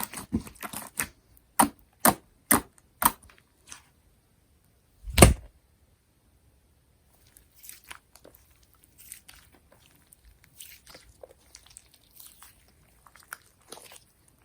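Jiggly slime being squished and poked by hand, giving a quick run of sharp clicks and pops, one loud pop about five seconds in, then softer scattered crackles.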